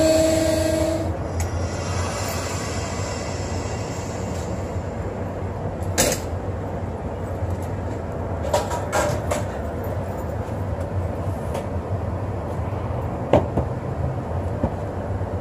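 A train passing on the line: a steady low rumble with sharp metallic clanks now and then as the wheels cross rail joints. A steady tone cuts off about a second in.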